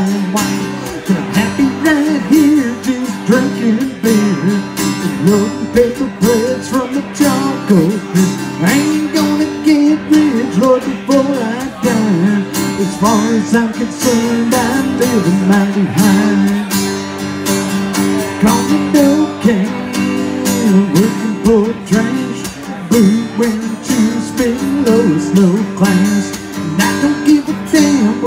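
Acoustic guitar strummed steadily, accompanying a live solo country song.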